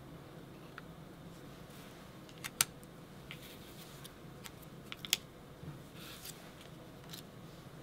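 Light clicks and taps of small paper die-cut pieces being picked up and set down on a cutting mat, with two sharper clicks about two and a half and five seconds in. A faint steady hum lies underneath.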